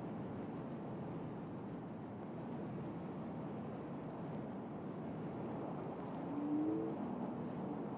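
Steady low rumbling noise, with a few short faint tones about six and a half seconds in.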